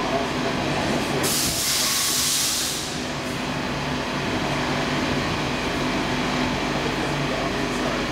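Stockholm C14 metro train standing at a station: a burst of compressed-air hiss lasting about two seconds, starting about a second in, then the steady hum of the train's onboard equipment with a few held low tones.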